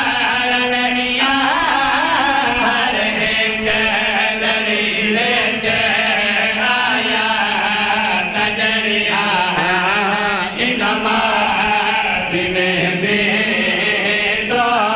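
Several men singing a chanted devotional lament together into handheld microphones, their amplified voices holding long, wavering notes.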